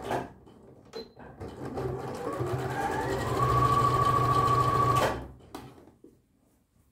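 Bernette b38 computerized sewing machine stitching through fabric: its motor whine rises in pitch as it speeds up, runs steadily for a couple of seconds, then stops suddenly about five seconds in, with a few light clicks before and after.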